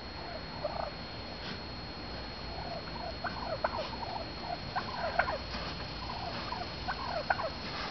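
Wild turkey hens giving short, quick calls, a few at first and more of them from about three seconds in.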